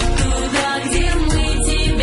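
Music from a song: held instrumental notes over a bass beat.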